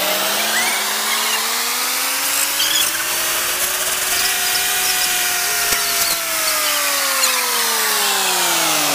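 Wheel loader's heavy diesel engine revving up under load as its bucket pushes the stuck, marble-laden truck, the pitch climbing for about five seconds, wavering briefly, then easing back down.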